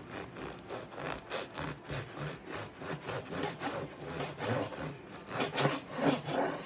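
A long knife sawing back and forth through the crust and crumb of a cinnamon-chestnut bread loaf, a rasping stroke about twice a second, loudest near the end as the slice is cut through.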